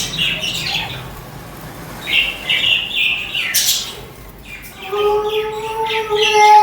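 Budgerigars chirping in short high bursts. About three-quarters of the way through, a long, steady held tone with overtones sets in and carries on under further chirps.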